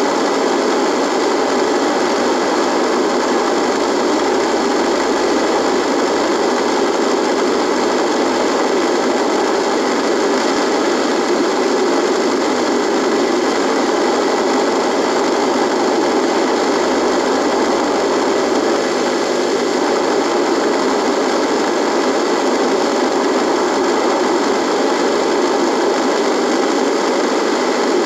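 Radio buzzing: loud, steady static noise with faint steady tones in it, unchanging throughout.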